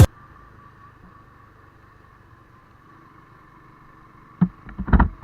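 Motorcycle riding along, heard faintly and steadily through a helmet-mounted mic, with a few sharp knocks near the end.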